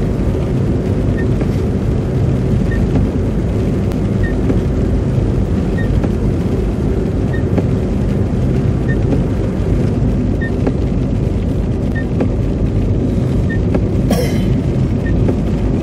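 Road noise inside a moving car: a steady low rumble of tyres churning through slush on a wet road, with the engine under it. A faint tick comes about every one and a half seconds, and a brief hiss sounds near the end.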